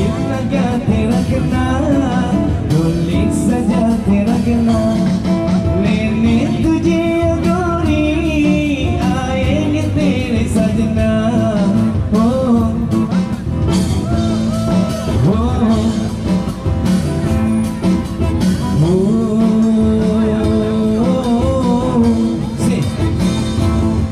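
A busking band playing a song live, with a singer's voice carried over a steady band accompaniment.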